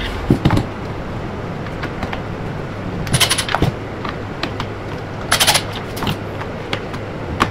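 Cordless impact driver run in two short bursts, about two seconds apart, driving screws into the table's side apron. Between the bursts there are a few light clicks and knocks of handling over a steady low hum.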